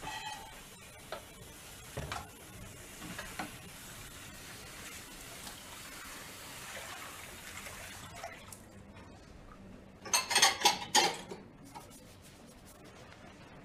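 Kitchen sounds: a steady hiss with scattered knocks and clinks, which fades out about eight seconds in. A loud burst of clattering pots and dishes follows around ten seconds in.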